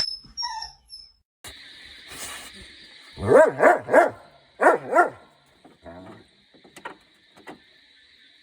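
A dog barking four times in two quick pairs, over a faint steady high-pitched tone.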